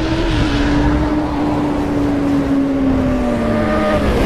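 Intro sound effect: a steady droning tone over a hissing rush, slowly sinking in pitch and dropping away near the end.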